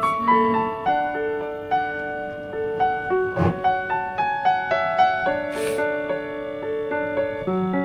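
Background piano music: a slow melody of held notes, with a short click about three and a half seconds in.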